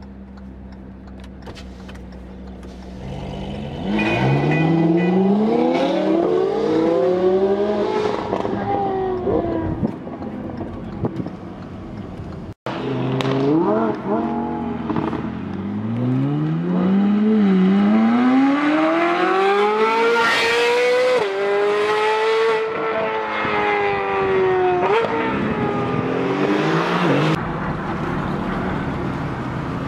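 Ferrari 458 Italia's V8 with an IPE aftermarket exhaust accelerating hard, its note climbing in pitch through each gear and dropping at the upshifts. The first pull starts after a few seconds of steady low hum. A sudden cut breaks the sound about halfway through, and a second long pull with several upshifts follows before it settles back to a steady hum near the end.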